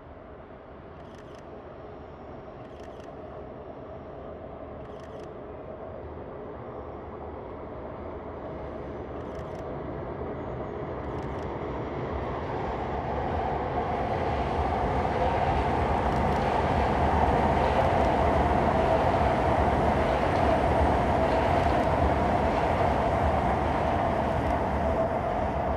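CR400AF Fuxing high-speed electric multiple unit passing at speed, a steady rush of rolling and air noise that grows louder for about sixteen seconds as the train approaches, holds at its loudest, then begins to ease near the end.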